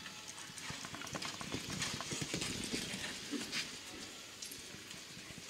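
Hooves of a Zangersheide gelding cantering on the sand footing of an indoor arena, a quick irregular run of dull hoofbeats that grows louder as the horse passes close and fades near the end.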